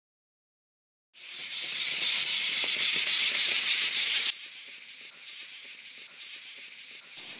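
A loud, steady hiss starts abruptly about a second in and drops suddenly to a softer hiss about three seconds later.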